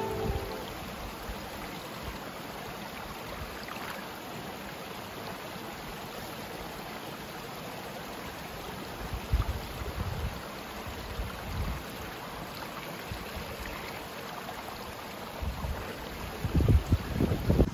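Small mountain stream running over stones, a steady rushing. Near the end come a few low bumps as a soft plastic water bag is pushed into the water to fill it.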